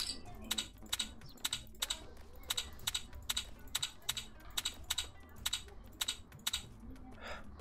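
A quick run of sharp clicks, about three or four a second, as betting chips are clicked onto the spots of an online blackjack table. The clicks stop a little before the end.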